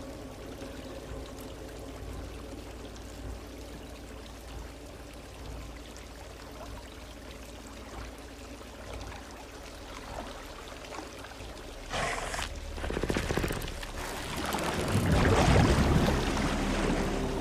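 Water trickling and pouring into a flooded basement over a low steady hum. About twelve seconds in comes a sudden louder rush of water, and a longer, louder stretch of pouring and splashing follows near the end.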